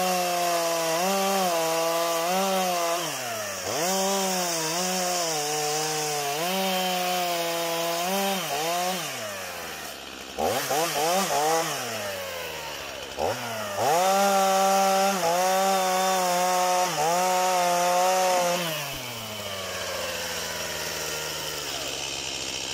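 Two-stroke chainsaw at full throttle cutting into a tree trunk from below, its pitch dipping and recovering as the chain bites into the wood. It falls back to idle twice in the middle and idles over the last few seconds.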